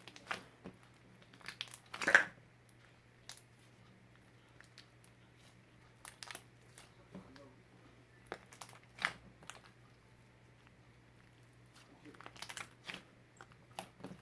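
Irregular crinkling and rustling from something being handled, with short clicks and taps. The loudest burst comes about two seconds in, with more around nine seconds and near the end, over a steady low hum.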